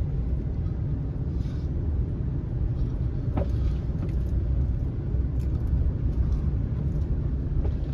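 Truck driving up a snow-covered road: a steady low rumble of engine and tyres, with a few faint ticks.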